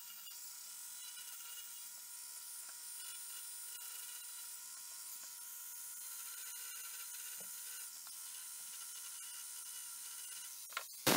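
Dremel rotary tool with a diamond point bit running and grinding into an acrylic pen blank: a faint, steady high whine made of several tones. A short, loud burst comes just before the end.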